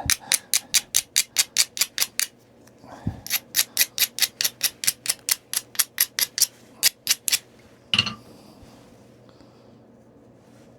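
Quick, even strokes of stone rubbing on the edge of a stone point being knapped, about six a second, in two runs with a short pause between. One heavier knock comes about eight seconds in, then it goes quiet.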